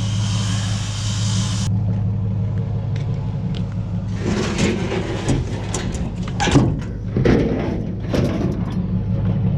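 Steady low hum of an idling vehicle engine, with a hiss that cuts off suddenly under two seconds in. From about four seconds in, scrap metal clatters and rattles, with a couple of louder knocks.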